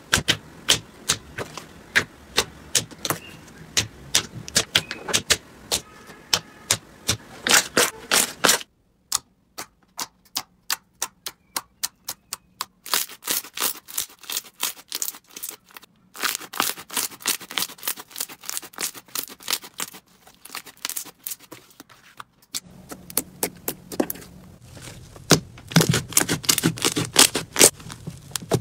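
Slime being pressed, squeezed and stretched by hand, crackling and popping in rapid trains of sharp clicks as trapped air pockets burst, with a few short breaks.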